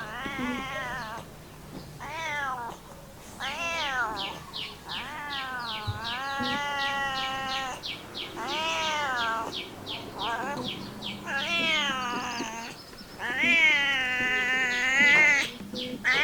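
Domestic cat meowing again and again, about a dozen drawn-out meows that rise and fall in pitch, some held for a second or more and loudest near the end. A quick run of short high chirps comes in twice, a few seconds in and near the middle.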